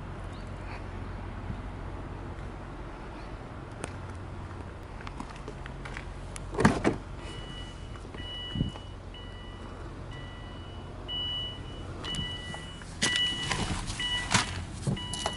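Subaru Impreza WRX STI's key-in-ignition warning chime, beeping about once a second with the driver's door open, starting about seven seconds in. Under it is a low steady hum and a few short knocks.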